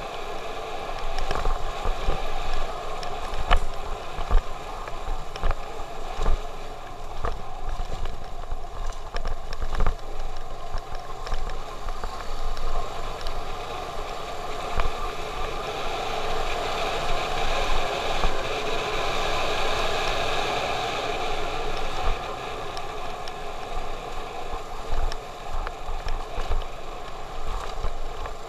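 Motorcycle riding on a rough, cracked concrete road: the engine running steadily under a gurgling rush of wind over the microphone, with occasional sharp knocks as the bike jolts over bumps.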